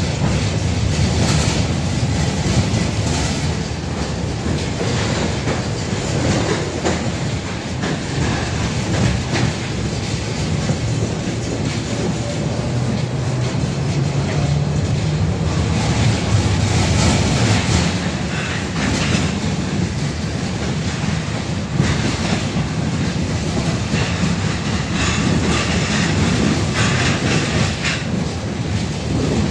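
A 71-605A tram running along the line, heard from inside its passenger saloon: a steady low rumble of steel wheels on rail, with scattered clicks and knocks as the wheels pass over rail joints.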